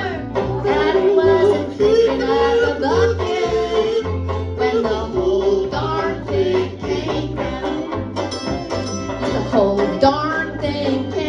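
Live country band music, a comic country song played with a steady bass line under a busy melody.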